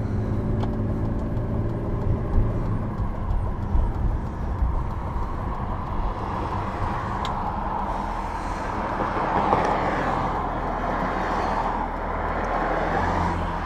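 BMW 323i E46 being driven, its straight-six engine running under steady road and tyre noise. The front suspension makes no clunking over bumps, its control arm bushings freshly replaced.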